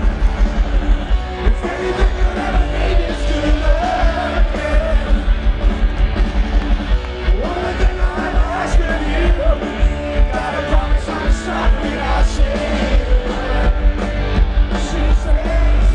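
Live rock band playing loud and heard from the audience: a fast, steady drum beat under distorted electric guitars, heavy bass and a sung vocal line.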